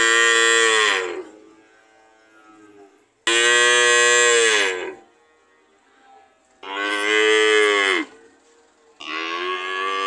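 Cattle mooing: four long moos a couple of seconds apart, each starting abruptly and sliding down in pitch as it ends.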